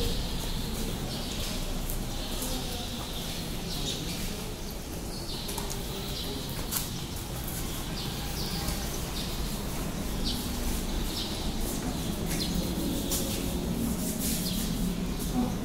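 Small birds chirping: many short, separate chirps come and go over a steady low background rumble.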